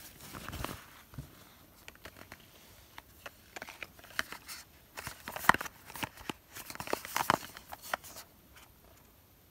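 Small cardboard cosmetic boxes and packaging handled by hand: scattered light taps and short rustles, loudest about halfway through and again a couple of seconds later.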